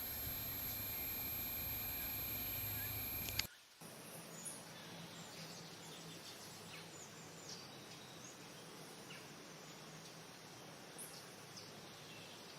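Forest ambience. A steady high insect drone runs for the first three seconds or so and cuts off abruptly. After that comes a quieter hiss of background sound with scattered short bird chirps.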